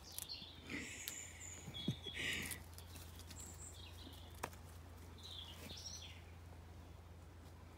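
Small birds chirping in short high calls, in two spells, with a few sharp ticks in between over a steady low background hum.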